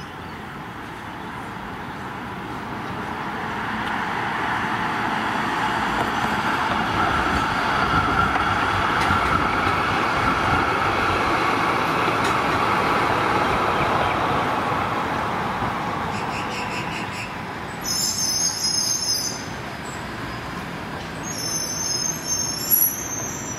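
B2-class articulated tram running on street track as it approaches and passes: a rolling rumble that grows louder, peaks about ten seconds in, then fades as it moves away. Two short spells of high-pitched wheel squeal come near the end.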